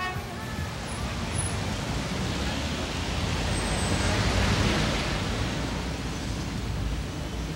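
City street traffic noise, with a taxi passing close that swells to its loudest about halfway through and then fades.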